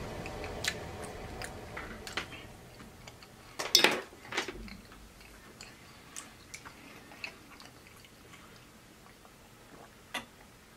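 A person eating fried chicken nuggets close to the microphone: chewing with scattered small clicks and one louder burst just under four seconds in, growing quieter after about five seconds.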